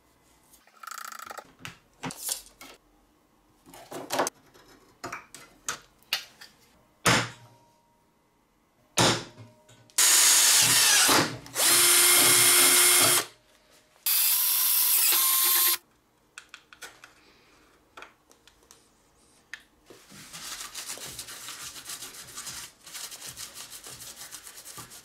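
A power drill boring a hole through an aluminium strip, running in two loud stretches of about three seconds and two seconds. Before it come scattered clinks and knocks of the metal strip being handled, and near the end a few seconds of rapid rubbing on the metal.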